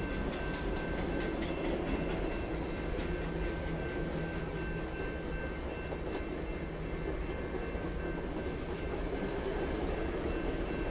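Rocky Mountaineer passenger train's bilevel dome coaches rolling past: a steady rumble of wheels on rail, with light clicking over the rail joints.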